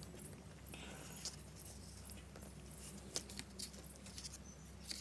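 Faint rustles and small scattered ticks of hands handling card stock and twine while re-tying a loose bow, over a steady low hum.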